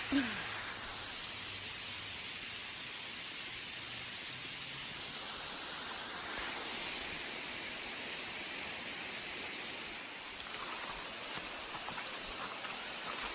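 Steady road and wind noise inside a moving car.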